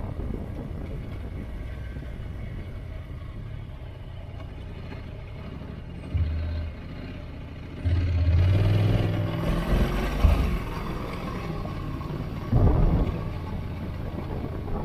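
Motorcycle engine running on a steep, winding climb, its note rising and falling with the throttle. It gets louder briefly about six seconds in, pulls harder with a rising pitch from about eight to ten seconds, and swells again near the end.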